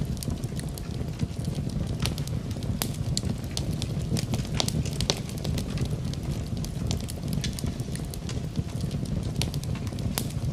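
Fire in a fireplace crackling, with frequent irregular sharp pops over a steady low rumble of the flames.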